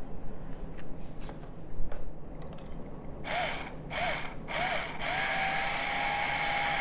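Small electric salt grinder whirring in three short pulses, its motor spinning up and down each time, then running steadily, grinding pink Himalayan salt. Before it, a few light clicks and taps as the yeast is tipped in.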